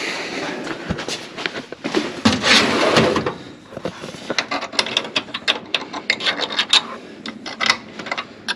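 Rummaging through tools for a small wrench: scraping and rattling at first, then a quick run of clicks and clinks as the tools are shuffled.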